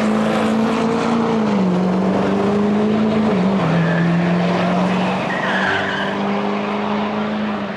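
A car engine held at high, steady revs with tyres squealing, as in a drag-strip burnout; the engine note steps down twice.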